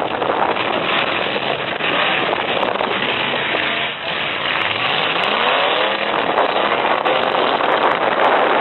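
Engines of full-size demolition-derby pickup trucks running loud together, one of them revving up with a steady rising pitch about halfway through.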